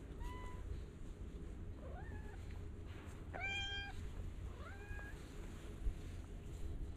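Cats meowing: four short meows a second or so apart, the third the loudest and longest, most of them rising in pitch at the start.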